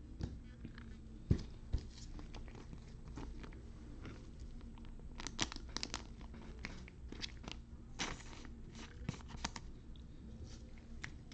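Trading cards and foil pack wrappers being handled and opened: scattered crinkles and clicks, with a couple of soft knocks about a second and a half in, over a faint steady hum.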